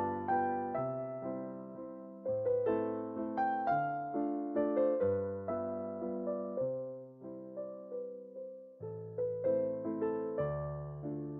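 Background piano music: a gentle melody of struck notes that ring and fade over a low bass line.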